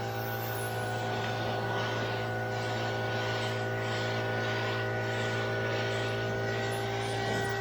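Spray-painting with a compressed-air paint gun: steady hissing that swells and fades in repeated passes, about one every 0.7 s, over the constant low hum of a running air compressor.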